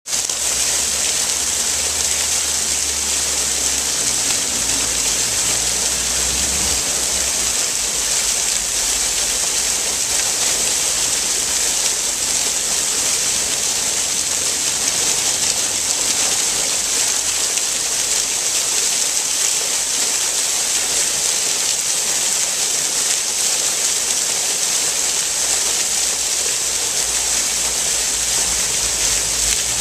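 Fountain jets spraying upward and falling back as a steady, loud rush of splashing water.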